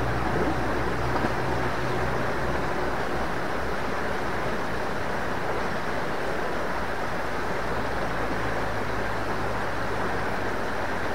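Fast-flowing shallow river rushing over stones below a bridge, a steady roar of water. A low hum sits under it at the start and again near the end.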